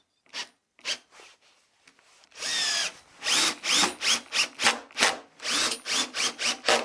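Cordless drill-driver driving wood screws into a plywood workbench top in short trigger bursts. Each burst has a quick rising whine as the motor spins up, with one longer run about two and a half seconds in.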